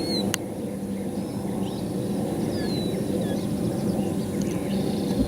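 Boat motor running steadily at idle, with faint bird chirps over it and a single sharp click about a third of a second in.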